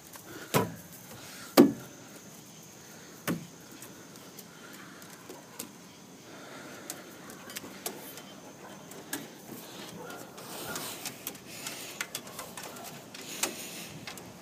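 Footsteps knocking on a playground structure's coated metal deck: three loud knocks in the first few seconds, then scattered light taps and clicks.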